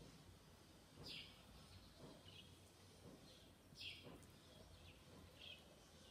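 Faint, short high-pitched chirps, each dropping in pitch, repeating every second or so over a low, steady background rumble.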